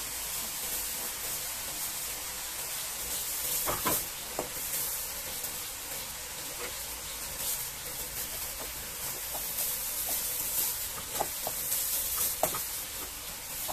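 Carrots and aromatics sizzling steadily in a hot wok over a gas flame. A few light knocks stand out, about four seconds in and again near the end.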